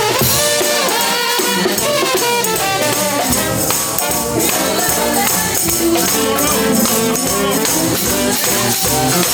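Brass band horn section of trumpets and trombones playing an upbeat instrumental tune live, with steady percussion underneath.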